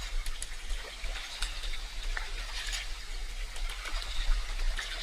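Water of a stream splashing and trickling, with many small irregular splashes over a steady wash.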